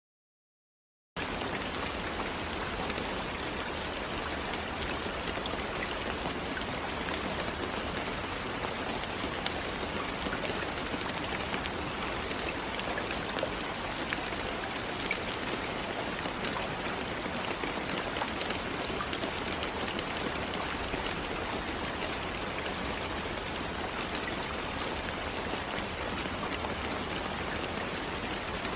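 Steady rainfall: an even hiss of rain with scattered drop ticks, starting suddenly about a second in after a moment of silence.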